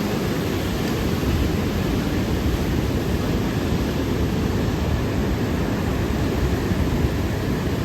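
Wind buffeting the microphone over the steady rush of storm surf.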